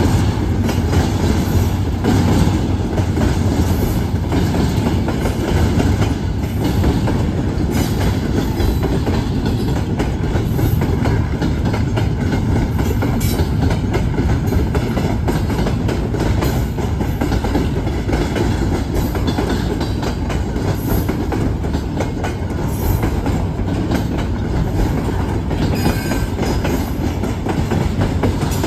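Double-stack container train's cars rolling steadily past: steel wheels running on the rails with a continuous low rumble and scattered clicks.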